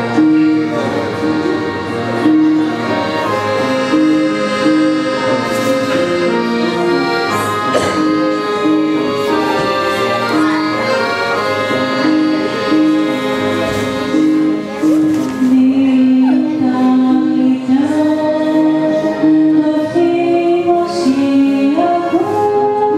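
Accordion and electronic keyboard accompanying a mixed choir in a slow Greek Christmas carol, the melody moving in long held notes.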